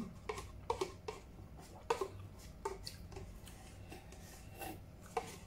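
A plastic spoon scraping and tapping inside a paper cup in scattered light clicks, with soft eating sounds as the last of the food is scraped out and eaten.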